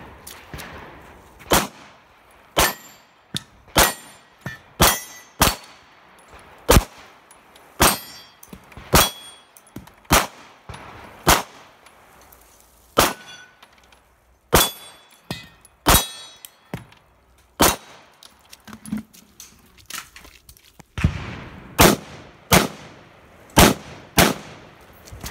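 A string of about twenty gunshots, roughly one a second. The first string comes from a pistol. After a pause of about three seconds near the 18-second mark, a faster string comes from a rifle. Many shots are followed by the ringing clang of bullets hitting steel targets.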